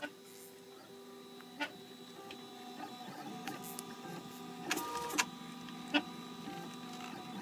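RepRap Prusa Mendel 3D printer at work, its stepper motors whining in steady tones that jump to new pitches as the print head changes moves. Sharp clicks come now and then, with a cluster about five seconds in.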